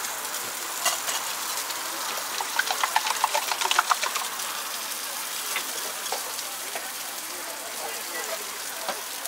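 Food frying in oil on a street-stall griddle, sizzling steadily, with a quick run of sharp clattering taps around three seconds in.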